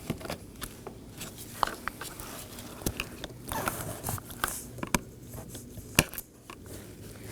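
Scattered sharp clicks and snaps of plastic as a flat blade screwdriver pries up the retaining clips of a Toyota Corolla interior door handle and works the handle out of the door panel, with light handling rustle between.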